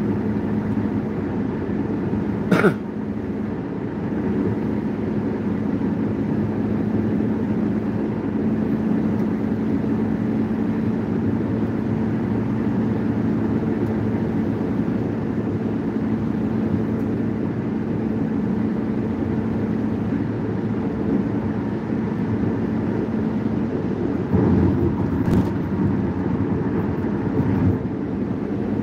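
Steady road and engine noise inside a moving car's cabin at highway speed, with a low steady drone. A sharp knock about two and a half seconds in, and a few smaller knocks near the end.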